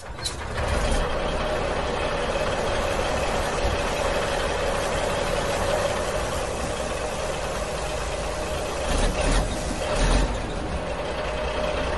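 Steady truck engine running noise, a truck sound effect laid over the footage rather than the engineless plastic toy itself, with brief louder swells near the end.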